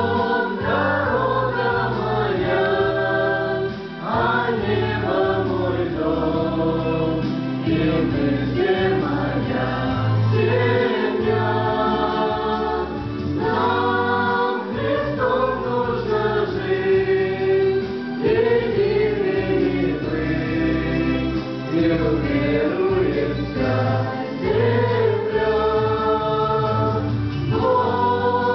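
Small mixed choir of men and women singing a Christian worship song in harmony, a few voices carried through handheld microphones, in long sustained phrases.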